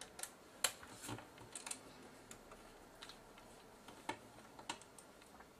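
Light, irregular clicks and taps of a small screwdriver and screws being worked out of a Sony PMW-EX1 camcorder's housing, about ten in all.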